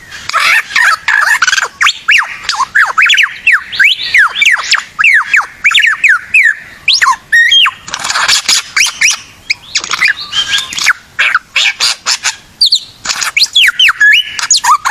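A bird singing loudly and without pause: a dense run of quick whistled notes that sweep up and down, mixed with harsh, squawky chatter.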